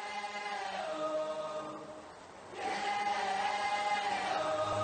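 Song intro of held, choir-like voices singing slow sustained chords. It fades for a moment about two seconds in, then swells back with a new chord.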